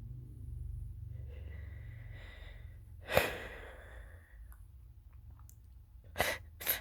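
A man's exaggerated sneezing. Drawn-out "ah… ah" intake breaths build up to one loud, sharp sneeze about three seconds in. Two quicker sneeze bursts follow close together near the end.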